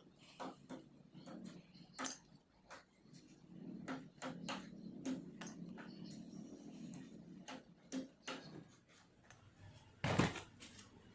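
Irregular clicks and knocks of metal scooter wheel parts being handled, over a low steady hum, with one louder clank about ten seconds in.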